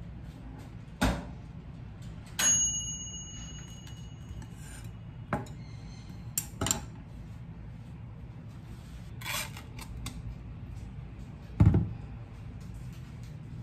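Kitchen utensils, a jar and bread being handled and set down on a wooden cutting board and stainless steel counter: scattered knocks and clatters, one about two seconds in leaving a short metallic ring, the loudest thump near the end. A low steady hum runs underneath.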